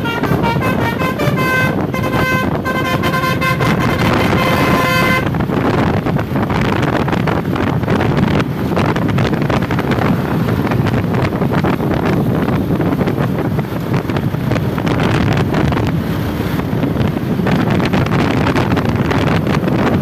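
Bus telolet horn, a multi-tone horn playing a stepping tune of several notes for about five seconds before it stops. Then engine and road noise of the bus and motorcycles passing.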